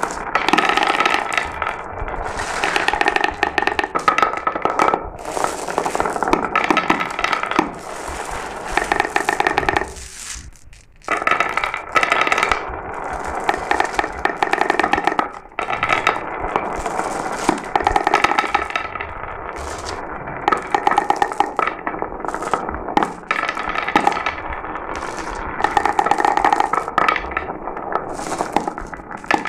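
Glass marbles rolling and clattering down a marble run: a continuous rattle of many small clicks and knocks with a ringing hum from the rolling, briefly dropping away about ten seconds in before picking up again.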